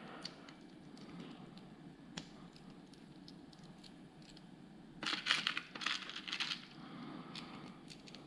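Plastic Lego Technic pieces clicking and rattling as they are handled and fitted, with a few scattered clicks and a denser burst of clatter about five seconds in that lasts about a second and a half.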